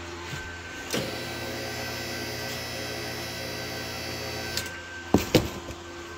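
QuickJack portable car lift's electric hydraulic power unit switched on with a click from its pendant button, running with a steady hum for about three and a half seconds before stopping. A couple of sharp knocks follow near the end.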